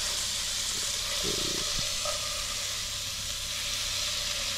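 Fish fillets sizzling steadily as they sear in hot coconut oil in a pot.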